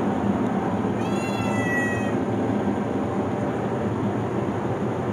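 A domestic cat meows once, a call about a second long starting about a second in, over the steady noise of a basement furnace running.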